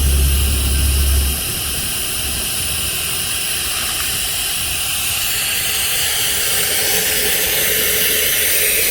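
Steady hiss of compressed air, growing louder in the second half. A low drone from the air rig stops about a second and a half in.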